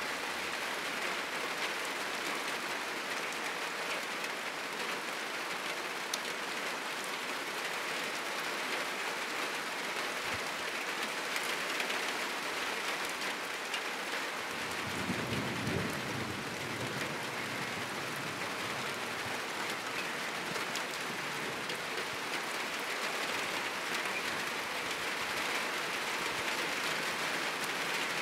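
Heavy rain falling steadily on a roof, an even unbroken hiss. A brief low rumble of distant thunder comes about halfway through.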